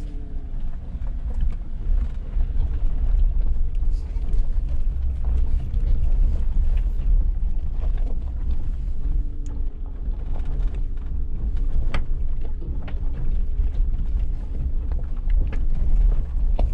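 Suzuki Jimny 4x4 driving: a steady low engine and tyre rumble with frequent short clicks, knocks and creaks from the body and suspension.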